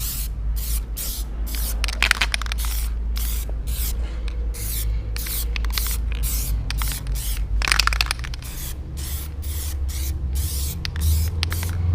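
Aerosol can of Plasti Dip glossifier spraying in short, rapid hissing bursts, about two to three a second, over a steady low rumble.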